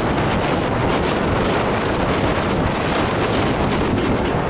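Wind blowing across the microphone: a steady, loud noise with no distinct events.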